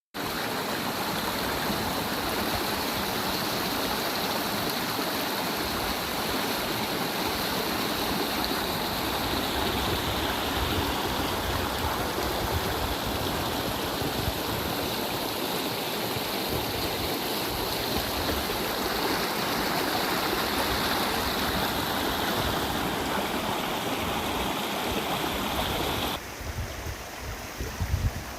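Waterfall rushing steadily and loudly. About two seconds before the end, the sound drops off suddenly to a quieter rush.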